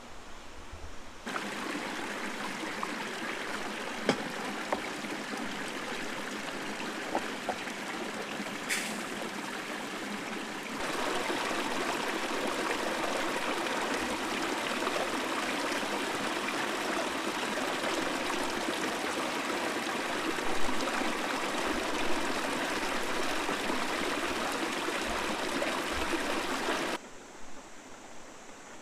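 Steady rush of water, a dense even hiss with no tune or rhythm. It starts suddenly about a second in, grows louder about eleven seconds in, and cuts off abruptly near the end.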